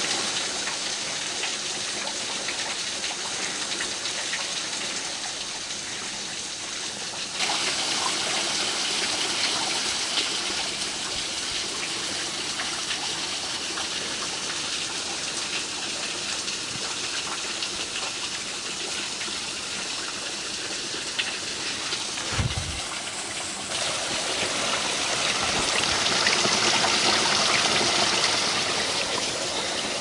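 Water running under and behind the ice of a frozen waterfall: a steady rushing hiss that steps louder about a quarter of the way through and again near the end, with one brief low thump about two-thirds of the way through.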